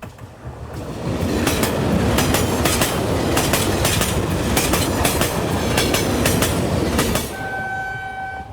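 Train sound-effect recording: the rumble of a train swells, holds with repeated sharp clacks of the wheels on the rails, then fades. A steady tone sounds for the last second or so.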